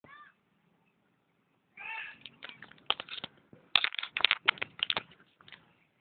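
A cat meows twice, briefly at the start and again about two seconds in. This is followed by a quick irregular run of clicks and knocks that is louder than the meows.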